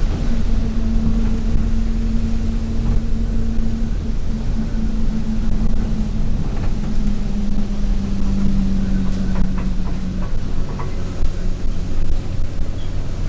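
Alexander Dennis Enviro200 bus under way, heard from inside: the engine and driveline run with a steady drone over a low rumble, the drone's pitch easing down a little about four seconds in and dropping away about ten seconds in. Light rattles from the bodywork come near the end.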